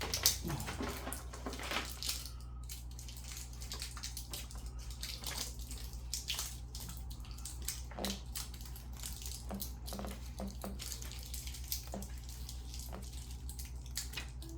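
Paper and plastic packaging being handled: irregular rustling and crinkling with scattered small ticks and taps, over a steady low hum.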